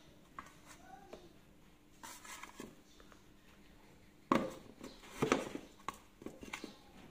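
Handling knocks and clatters in an aluminium cooking pot as whole fish are laid in and pushed into place by hand, with the loudest knocks about four and five seconds in and smaller clicks between.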